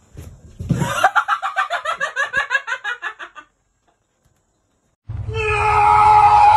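A rapid run of short, pitched animal calls, about eight a second for roughly three seconds, dying away at the end. About five seconds in, music with held reedy notes starts.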